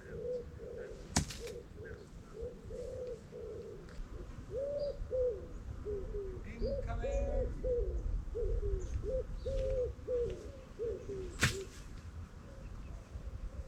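A pigeon cooing over and over in short, repeated phrases, over low wind rumble. Two sharp knocks sound, about a second in and again near the end.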